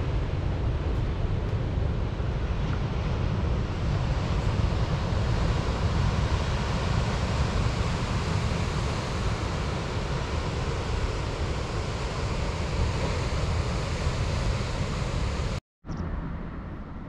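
Surf breaking on a rocky shore, with wind buffeting the microphone, a steady heavy rumble. Near the end it cuts off for a moment and comes back quieter.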